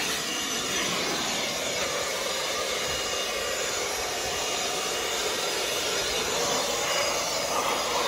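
Milwaukee M18 cordless battery leaf blower running steadily, its air blast blowing packed dirt and leaves out of an air-conditioner condensing unit.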